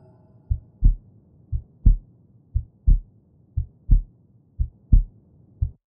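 Low double thumps in a heartbeat rhythm, lub-dub about once a second, the second thump of each pair the louder, cutting off near the end.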